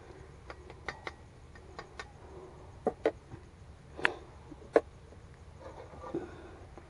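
Spoon tapping and scraping against a plate of rice: scattered light clicks, with a few sharper knocks around three to five seconds in.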